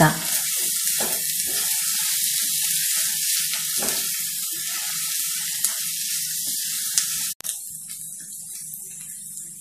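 Chopped onions and green chillies sizzling in hot oil in a nonstick pan, half softened, while a spatula stirs them with short scraping strokes. About seven seconds in the sizzle drops suddenly to a quieter, steady hiss.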